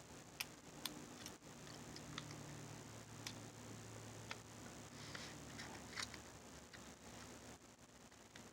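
Faint, irregular small metallic clicks and taps of Allen wrenches being handled and tried against a doorknob's set screw, about ten in all.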